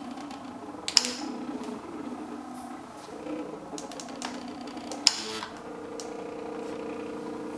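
MakerBot Thing-O-Matic's stepper motors running a laser-cutting path, a steady whine that shifts pitch a little past the middle as the platform changes direction. Two sharp clicks stand out, about four seconds apart.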